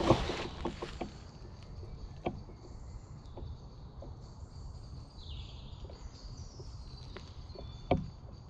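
Quiet woodland ambience at dusk. It opens with a short loud rustle, followed by a few scattered sharp clicks and a low thump near the end.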